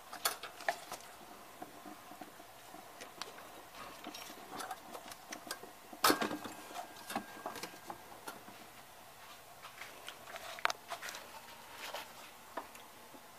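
Scattered small clicks and knocks of hands and tools handling parts in a car's engine bay, with the engine off. The loudest knock comes about six seconds in.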